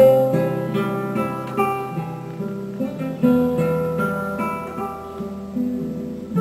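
Acoustic guitar music, a run of plucked notes and chords, played back through a single-ended 100TH/805 tube amplifier and loudspeakers.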